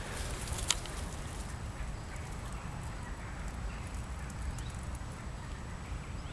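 Outdoor ambience: a steady low rumble with one sharp click just under a second in.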